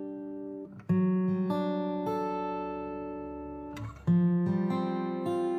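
Background music: an acoustic guitar strumming chords that ring out and slowly fade, with fresh strums about a second in and again about four seconds in.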